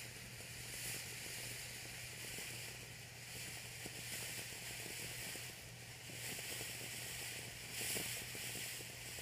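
Ground fountain firework spraying sparks with a steady hiss that swells several times, with faint crackling.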